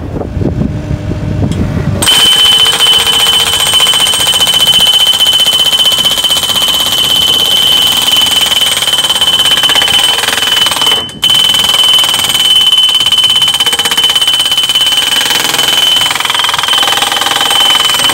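Hydraulic post driver hammering rapidly and steadily, steel striking steel with a high ringing tone. It starts abruptly about two seconds in after a low engine rumble, and breaks off for a moment about eleven seconds in.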